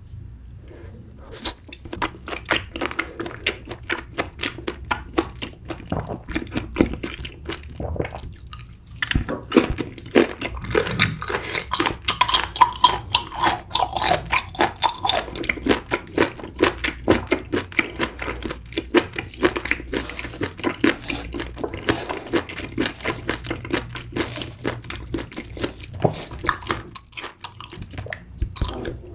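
Close-miked chewing: wet smacking and squelching mouth sounds in quick, irregular clicks.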